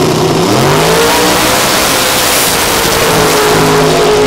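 Two drag-race cars, one nitrous-fed and one turbocharged, launching from the line side by side at full throttle and accelerating hard down the strip. Their engine notes climb in pitch as they pull away.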